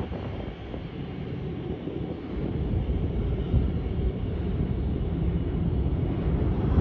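NYC subway R188 train on the 7 line departing into the tunnel, its low wheel-on-rail rumble fading. In the second half the rumble builds again as another train approaches.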